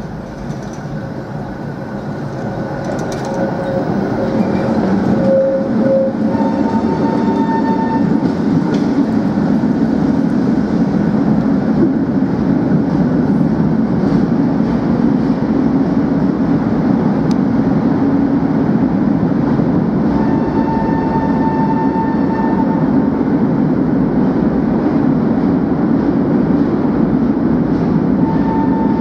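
Articulated tram running along its rails: a steady low rumble of wheels on track that grows louder over the first few seconds and then holds. Short high whining tones come in about six seconds in, again about twenty seconds in, and near the end.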